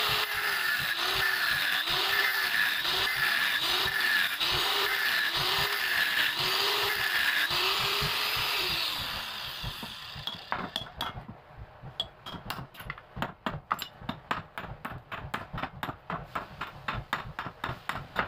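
Angle grinder cutting into the metal end housing of an electric water-pump motor, its pitch rising and dipping as the disc bites, then spinning down about nine seconds in. After that comes a quick run of sharp taps, about two or three a second.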